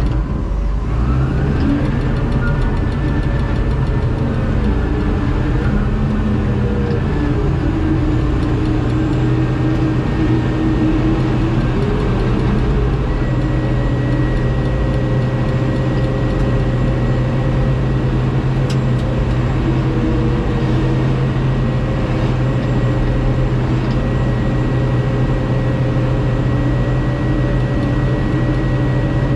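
Diesel engine of heavy machinery running steadily under load, with a thin high whine that comes in about halfway through.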